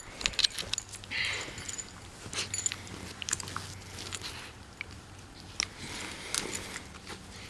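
Beagle puppy play-biting and mouthing close to the microphone, with scattered small sharp clicks and short rustling noises.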